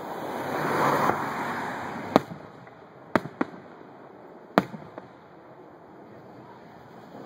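Aerial fireworks shells bursting: four sharp bangs between about two and five seconds in, the first the loudest. Before them, a rush of noise swells and fades over the first two seconds.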